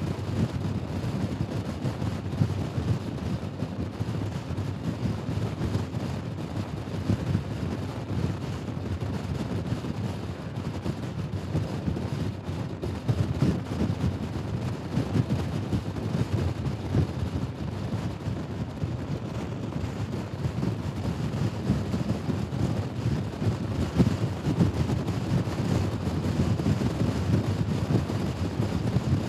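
Steady rush of wind on the microphone and road noise from a Honda Forza scooter being ridden at speed, with no change in pace.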